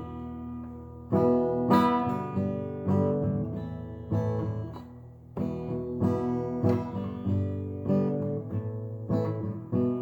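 Acoustic guitar playing strummed chords, each chord ringing and fading before the next. The playing dies away about four to five seconds in, then picks up again.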